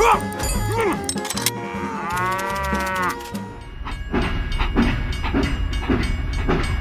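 Background music, with a single drawn-out cow-like moo about two seconds in, then a steady rhythmic pulsing beat.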